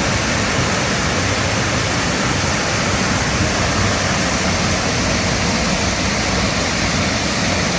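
Waterfall heard up close: a loud, steady rush of falling water.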